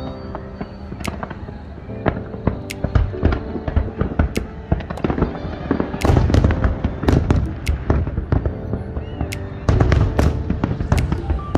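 Fireworks going off in a display: many sharp bangs at irregular intervals, coming thickest about halfway through and again near the end, with background music underneath.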